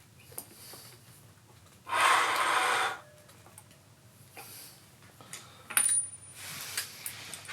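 Metal hand tools clinking and scraping on the motorcycle's clutch parts, with a loud rasping stretch of about a second two seconds in and a quieter one near the end.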